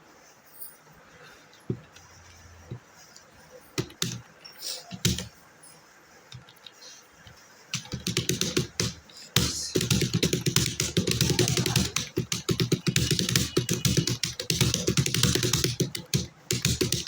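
Fast typing on a computer keyboard. A few scattered clicks come first, then about eight seconds in a dense, rapid run of keystrokes carries on without a break.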